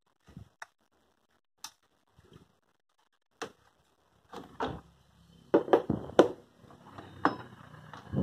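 Hands handling the memory modules and fittings inside an open desktop PC case: scattered plastic clicks and knocks, sparse at first, then a quick run of sharp clicks a little past halfway over a low handling rumble.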